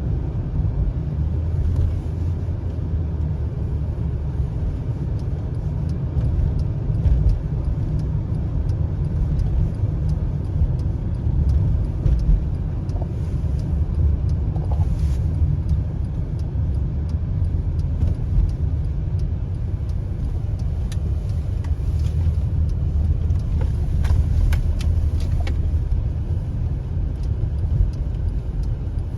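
Car driving, with a steady low rumble of road and engine noise.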